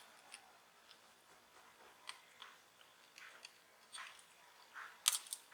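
Faint, scattered clicks and light scrapes of small smartphone parts being handled and pried during disassembly, with a sharper click near the end.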